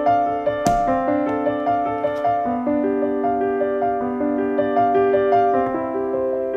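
Background piano music: a light keyboard melody of held notes.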